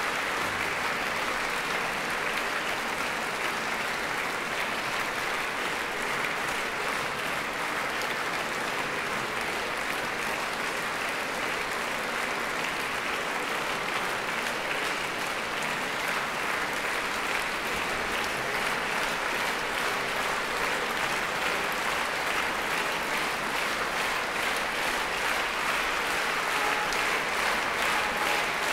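A large concert-hall audience applauding steadily, a dense even clatter of many hands clapping that swells slightly near the end.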